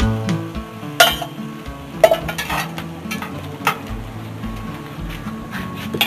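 Egg-battered charal fritters sizzling in hot oil in a clay cazuela, with sharp clinks of a metal utensil against the pan as the fritters are lifted out, two of them loud at about one and two seconds in.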